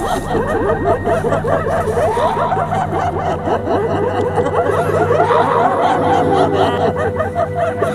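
Many overlapping voices snickering and chuckling at once, over a steady low hum. A held tone joins about three seconds in.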